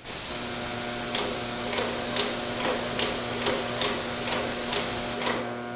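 Airless paint sprayer spraying: a loud steady hiss that starts suddenly and stops shortly before the end, with light ticks about four times a second through the middle.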